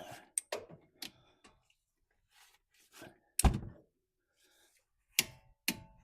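Scattered sharp metallic clicks and knocks from a socket and torque wrench being fitted and worked on a brake caliper bolt. There is one louder, heavier thunk about three and a half seconds in.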